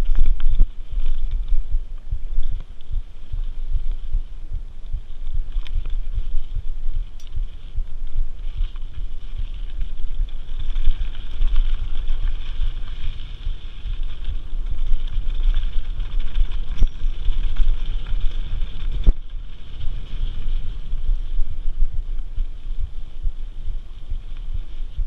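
Mountain bike riding fast on a dirt singletrack: tyre rumble and wind buffeting the handlebar-mounted camera's microphone, with a few sharp clicks and knocks from the bike over the trail.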